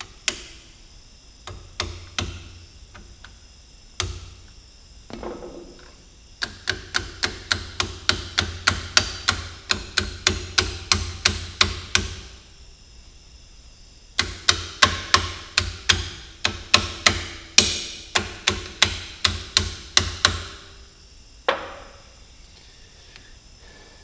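Hammer tapping on the Cat D3C dozer's pilot control joystick, seating the swivel and plungers down into its housing. A few single blows come first, then two runs of quick, even taps, about four a second, each lasting some six seconds, and one last blow near the end.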